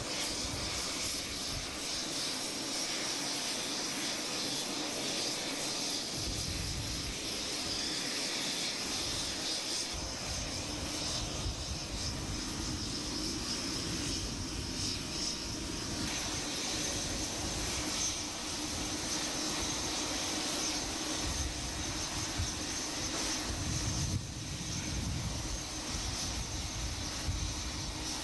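Aircraft engines running on an airport ramp: a steady hissing whine with a thin high tone, over an uneven low rumble.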